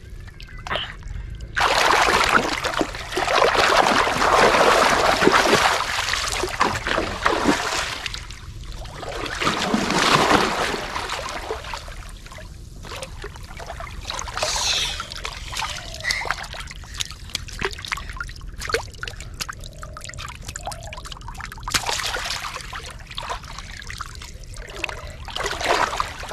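Shallow water splashing and sloshing as a hooked fish is hauled in and grabbed by hand, with two long bouts of loud splashing in the first half, then quieter trickling and dripping.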